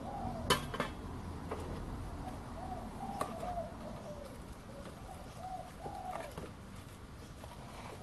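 A dove cooing a low phrase over and over, with a few sharp metallic clinks from the crucible being handled in the paint-tin furnace. The loudest clink comes about half a second in.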